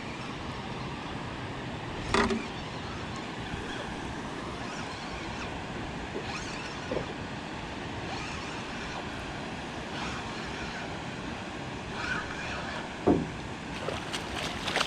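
Steady wind and water noise on an open fishing boat, with one sharp knock about two seconds in and a few faint taps and bumps later.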